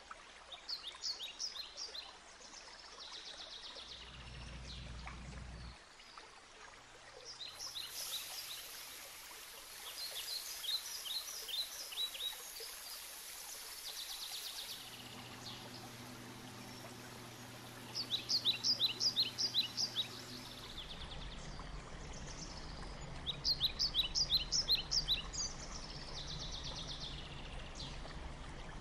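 Birds chirping in quick repeated trills, five bursts about four to six seconds apart, over a steady background hiss.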